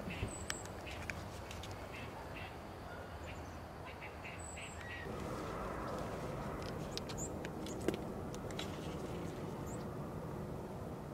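Birds calling in short notes over steady outdoor background noise, with a change in the background about halfway through.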